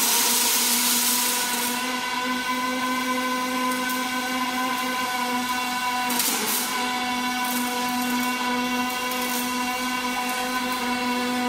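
Welding arc of an automatic longitudinal seam welder, struck just at the start: a rushing hiss for the first two seconds, then a steady pitched buzz as the torch runs along the seam, with a brief hiss about six seconds in.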